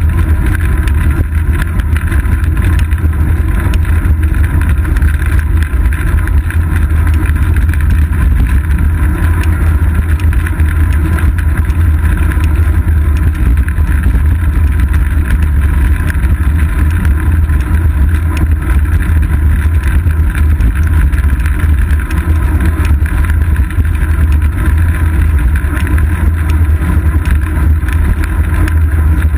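Steady wind buffeting and road rumble on a seat-post-mounted GoPro Hero 2 camera on a moving bicycle, a loud, even low rumble with a hiss above it.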